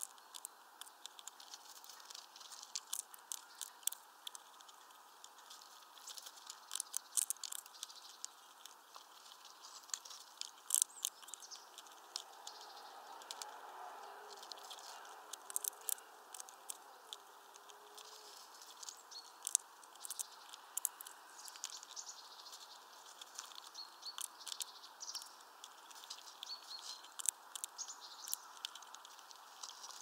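Red squirrel eating sunflower seeds on a feeder tray: irregular sharp clicks and crunches as it nibbles and cracks the shells, coming in quick clusters.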